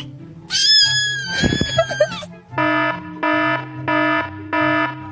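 A long cat meow, then an electronic alarm beeping five times in an even rhythm, over background music.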